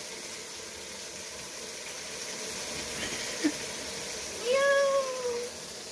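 Onion-and-tomato masala sizzling steadily in the pot as it fries, with a cat meowing once near the end: one long call, rising then falling.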